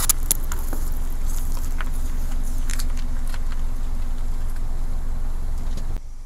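Car tyre rolling over plastic squeeze tubes of slime on asphalt, with a run of sharp crackles and clicks as the tubes are crushed, densest in the first three seconds, over the steady low rumble of the car.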